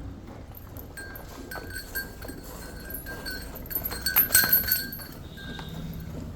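A metal bell on a cow clinking repeatedly, in short rings, with a louder flurry of clinks about four seconds in.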